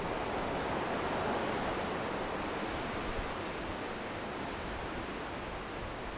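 Steady rush of ocean surf, swelling slightly about a second in.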